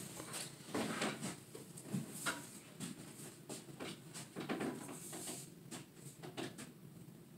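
Soft, irregular footsteps and shuffling of sneakers on a wooden walking platform, including slow steps on a prosthetic leg.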